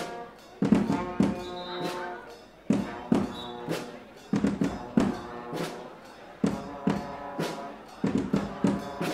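A Guggenmusik band playing: brass horns (trumpets and trombones) sounding chords over big bass drums and a drum set, with loud drum strikes punching through in a driving rhythm.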